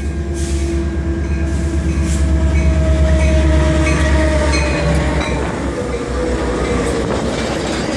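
Metra diesel commuter train with two locomotives rolling in to a stop: a heavy engine rumble with pulsing clatter, loudest about three seconds in and easing after about five. Steady whining tones slowly drop in pitch as the train slows.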